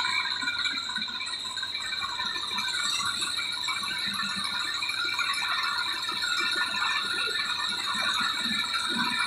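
TAFE 45DI tractor's diesel engine running steadily under a steady metallic rattle while it pulls forward with its hydraulic tipping trolley raised to dump soil.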